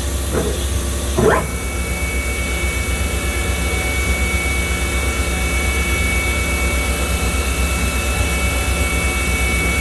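Kitamura 2XiF vertical CNC machining center running: a steady low machine hum, with a brief rising sweep about a second in, after which a steady high whine holds.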